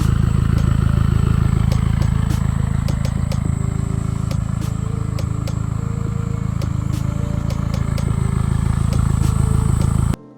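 Toyota MR2 GT-S (SW20) 3S-GTE turbocharged four-cylinder idling steadily through a Fujitsubo RM01A aftermarket muffler. The exhaust note cuts off suddenly near the end.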